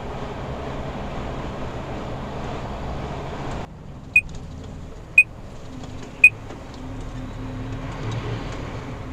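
Lorry cab noise heard from the dashboard: steady engine and road noise at highway speed that drops suddenly about three and a half seconds in to a quieter engine hum. Three short, sharp, high ticks follow, about a second apart.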